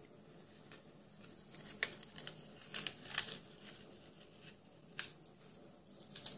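Masking tape being peeled off the edges of a watercolor sketchbook page in short crackling tugs, with several quick rips, the sharpest about three seconds in and again near the end.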